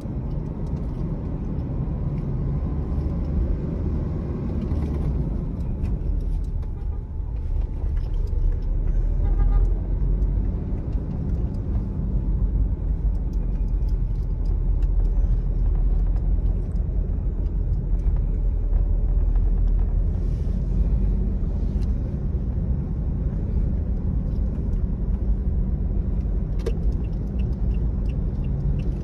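Toyota Innova driving, heard from inside the cabin: a steady low rumble of engine and road noise.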